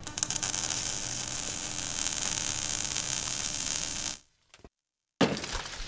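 Hissing, crackling sound effect for an animated logo, which cuts off suddenly about four seconds in. After a short silence a second burst of crackling starts.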